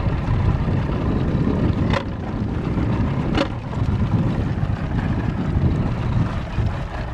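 A boat running on the water: a steady low rumble of motor, hull and wind, with two sharp knocks about two seconds and three and a half seconds in.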